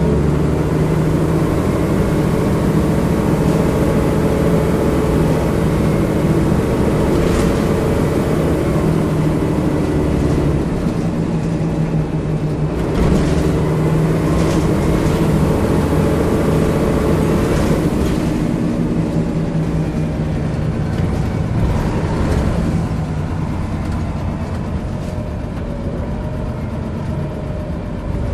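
Diesel engine of a single-deck bus, heard from inside the passenger saloon as the bus drives along. The engine note eases off and picks up again, then drops away quieter about two-thirds through, with a few knocks and rattles.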